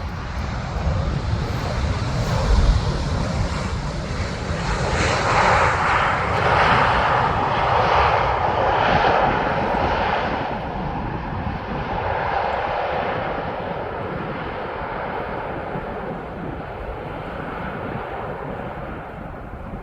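Jet airliner's engines just after touchdown: a loud, wavering jet roar that swells a few seconds in, peaks, then slowly fades as the aircraft rolls out.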